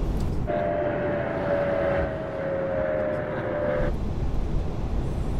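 Steady rush of air and engine noise on an Airbus A380 flight deck during approach. From about half a second in until about four seconds, the low rumble drops away and a steady double tone, sinking slightly in pitch, takes over.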